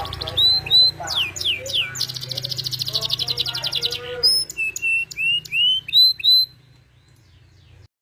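Domestic canary singing: quick rising whistled chirps, a fast rolling trill for about two seconds, then more rising chirps before it falls quiet near the end.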